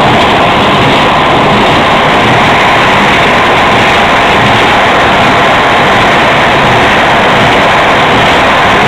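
Heavy farm machine's engine running steadily and loud.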